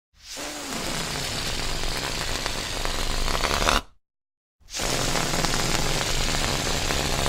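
A balloon deflating, its air rasping out of the neck with a long, fart-like buzz. It happens twice: the first runs about four seconds and cuts off suddenly, and the second starts after half a second of silence.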